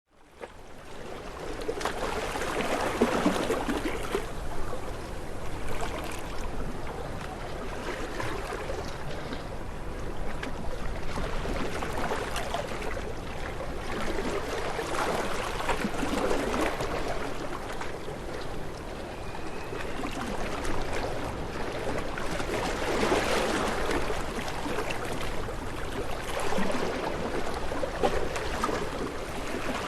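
Waves washing in and drawing back, a continuous wash that swells and eases every few seconds. It fades in over the first second or so.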